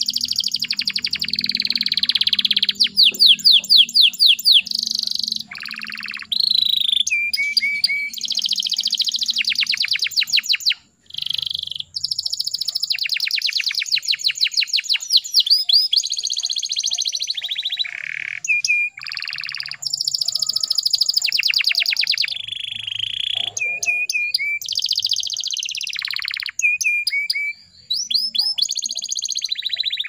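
Domestic canary singing a long song of fast trills and rolled phrases, each a quick run of repeated notes, with short breaks about 11 and 28 seconds in.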